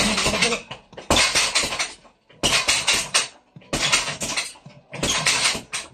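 A hanging heavy bag on a metal stand being hit in quick punch combinations. Each flurry is a dense clatter of impacts and rattling from the bag's chain and stand. About five flurries, each about a second long, come in a steady rhythm with short gaps between them.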